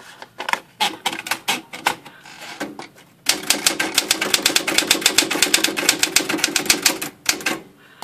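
Smith-Corona Classic 10 manual typewriter: a few scattered clicks as the paper is fed in, then about four seconds of fast, even typing, roughly eight keystrokes a second, stopping shortly before the end.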